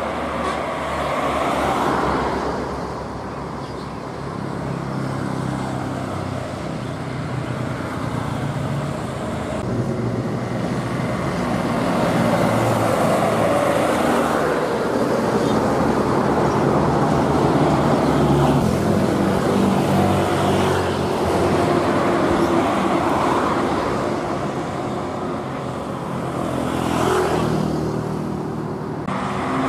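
Road traffic: trucks, a bus, cars and motorcycles passing, their engine notes shifting as they go by.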